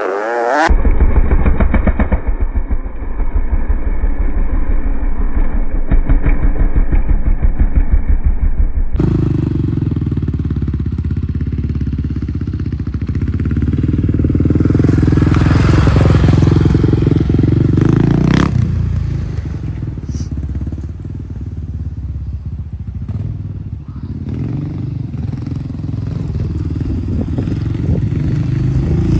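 Honda XR650R dirt bike's big single-cylinder four-stroke engine running while the bike is ridden, its revs rising and falling with the throttle. The sound changes abruptly about nine seconds in, from a thinner, muffled recording to a fuller one.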